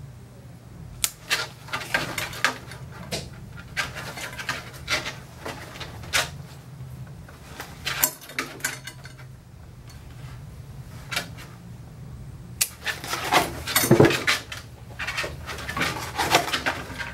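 Pet nail clippers snipping a Scottish terrier's toenails: a series of sharp clicks about once a second. Around 13 seconds in comes a louder stretch of scraping and rustling.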